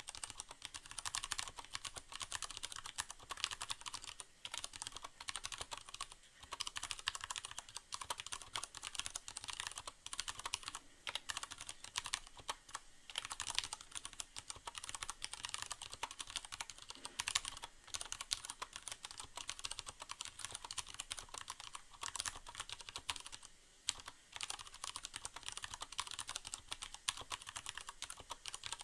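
Fast, continuous typing on a Leopold FC750R mechanical keyboard with Cherry MX Brown switches: a dense run of keystroke clacks that breaks off in a few short pauses.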